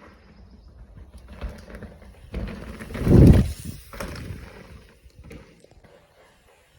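Mountain bike riding down a trail: rumble and hiss of riding noise on the camera's microphone, swelling to one loud surge about three seconds in, then dying away.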